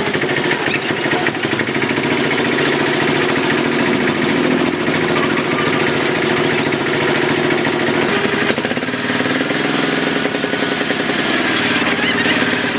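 Small dump truck's engine running with a fast, steady chugging beat while the loaded bed tips up and dumps sand.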